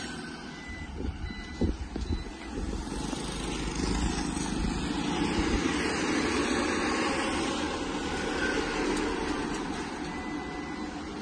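Road traffic going by, with one vehicle passing and swelling in level through the middle, then fading. A few sharp knocks come in the first couple of seconds.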